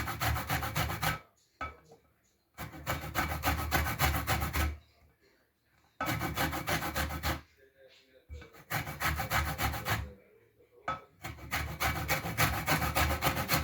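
Lemon rind being rubbed quickly back and forth over a metal hand grater to take off the zest, a fast rasping scrape. It comes in five bouts of a second or two each, with short pauses as the lemon is turned.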